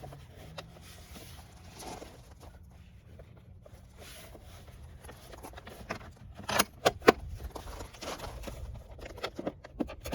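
Handling noises as a plastic side-mirror cover is worked back into place, with a quick run of sharp plastic clicks about two-thirds of the way through.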